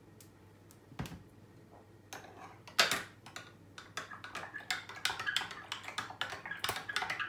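A teaspoon stirring a green juice in a stemmed drinking glass, clinking quickly and repeatedly against the glass from about four seconds in. Before that come a dull knock about a second in and a sharp clink near three seconds, the loudest sound.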